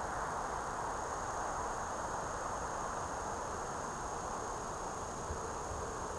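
Steady outdoor background noise with a thin, high, steady tone running through it; no distinct event stands out.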